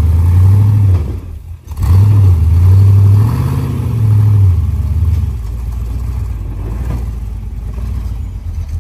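Off-road rig's engine revving loudly. It drops off briefly about a second and a half in, revs up again with a slight rise in pitch, then eases to a lower, steadier run about halfway through.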